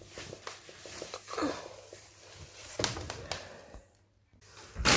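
Handling and scrubbing noises while a stubborn stain is rubbed: scattered light clicks and knocks with rubbing, a brief pause near silence about four seconds in, then a louder rustle right at the end.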